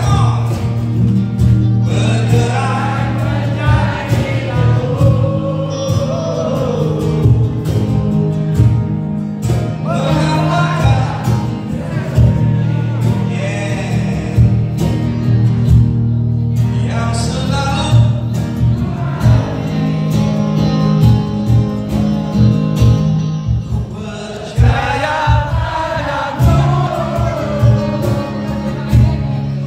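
A band playing a song live, with a man singing over a steady drum and bass beat.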